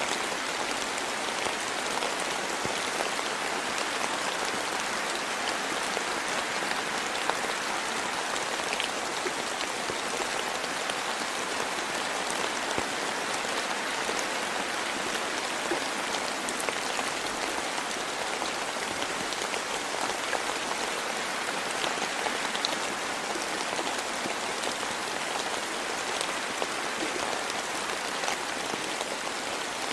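Steady rain falling, an even hiss with many small drops ticking here and there.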